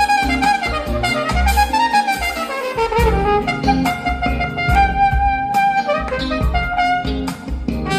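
Live jazz band with a brass horn playing a melodic line that slides down in pitch about two seconds in, over bass and percussion.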